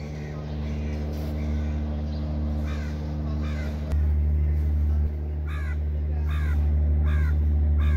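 Crows cawing, about six calls from the second half onward, some in pairs, over a steady low mechanical hum.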